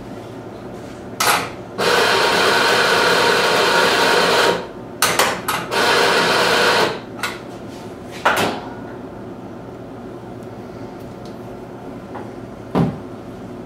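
Espresso grinder grinding coffee into a portafilter: a run of a few seconds, a few short stuttering bursts, then another shorter run. A couple of sharp knocks follow, the loudest near the end.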